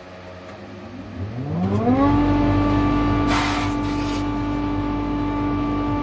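An electric power-tool motor starts up, its whine climbing in pitch for under a second before settling into a steady run, with a short burst of hissing about three seconds in.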